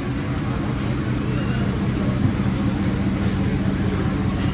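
A car or truck engine running steadily at low speed, a continuous low hum.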